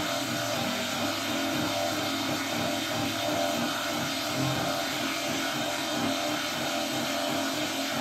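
Dave Smith Instruments Mono Evolver monophonic synthesizer sounding one held note: a steady drone with many overtones and a low end that keeps wavering.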